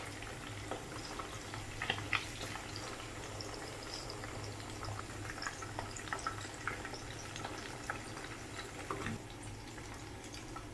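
Chicken pieces deep-frying in hot oil: steady bubbling with many scattered small pops and crackles over a low steady hum.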